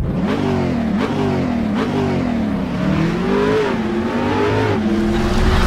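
Car engine revving, its pitch rising and falling several times, then holding steady near the end.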